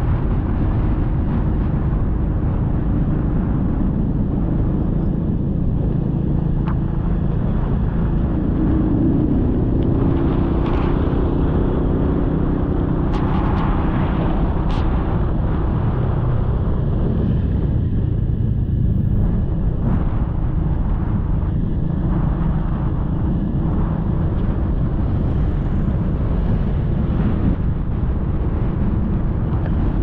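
Small motorcycle riding along a road: a steady engine drone mixed with heavy wind rumble on the microphone.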